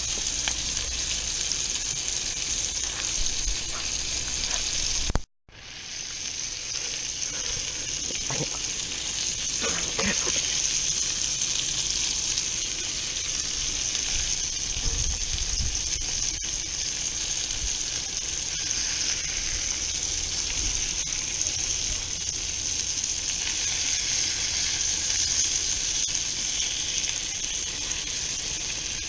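Fish fillets sizzling and frying in hot olive oil in a pan on an overheated grill: a steady frying hiss. It cuts out abruptly for a split second about five seconds in, then carries on.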